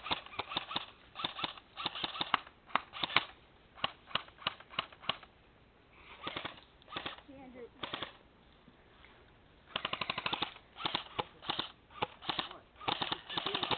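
Airsoft guns firing, mixing single shots with short rapid bursts, and a fast string of shots about ten seconds in.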